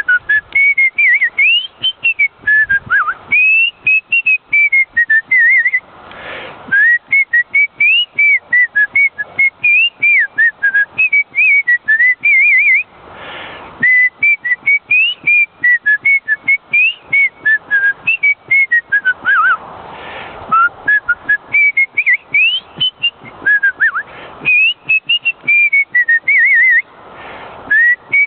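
A person whistling a lively melody, one clear note at a time, with quick runs and trills, pausing briefly for a breath about every seven seconds.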